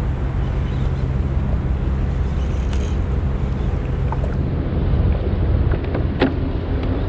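Wind buffeting a kayak-mounted camera's microphone over open water, with a steady low hum underneath and a few short clicks and knocks about three, four and six seconds in.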